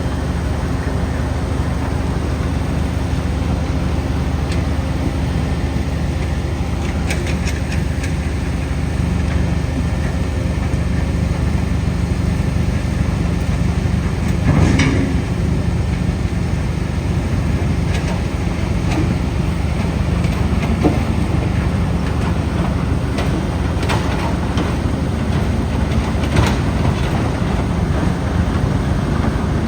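Mobile asphalt crusher running steadily under load, its diesel engine droning as it grinds up old asphalt. Scattered knocks and rattles from the broken material come through now and then.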